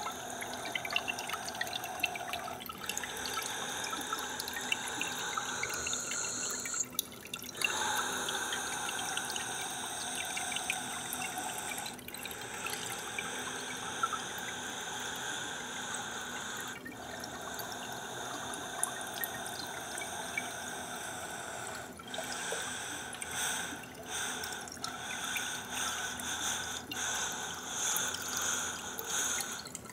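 Steady trickling, dripping water. The sound changes abruptly every five seconds or so.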